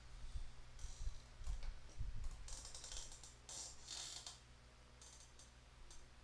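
Computer mouse being slid and shifted on a desk: faint scratchy rubbing in about five short bursts, with a few soft bumps in the first two seconds.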